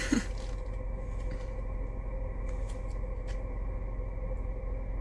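Steady low hum of a car idling, heard from inside the cabin, with a few faint soft clicks about halfway through.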